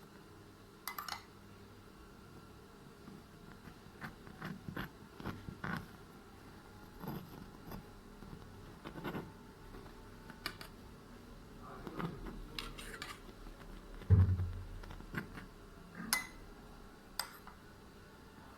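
Kitchen utensils and cookware being handled: scattered light clicks and knocks, with one louder thump about fourteen seconds in.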